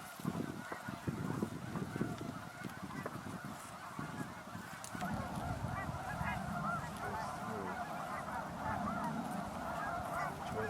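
A large flock of snow geese calling all at once, a dense overlapping chatter of honks that grows louder about halfway through, with a low rushing sound underneath from then on.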